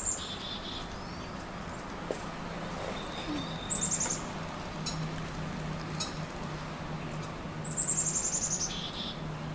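A bird calling three times: each a quick string of high, thin notes that steps down lower at its end, over a faint steady hum.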